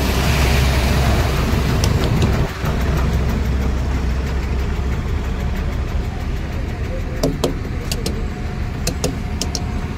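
Heavy truck's diesel engine idling with a steady low rumble, with a few sharp clicks near the end.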